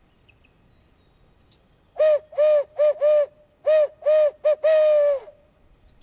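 Hand-blown owl hooter (locator call) giving eight loud hoots in the barred owl's 'who cooks for you, who cooks for you all' rhythm, the last one drawn out and falling slightly. The call is blown at dusk to make a roosted tom turkey gobble and give away where he is.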